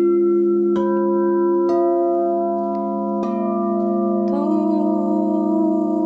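Crystal singing bowls struck one after another with a mallet, five strikes in all, each adding a new sustained ringing tone to a layered chord. About four seconds in, a woman's voice begins singing a held, wavering note over the ringing bowls.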